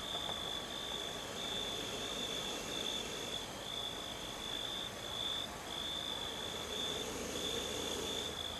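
Night insects trilling: one steady, high-pitched trill that breaks off briefly every second or so, over a faint hiss.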